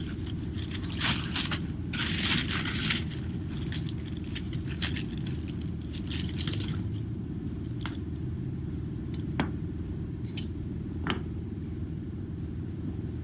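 Metal scraping and clinking as a bolt is worked through a suspension control arm and its mount, heaviest in the first three seconds and again around six seconds in, then a few single sharp clicks. A steady low hum runs underneath.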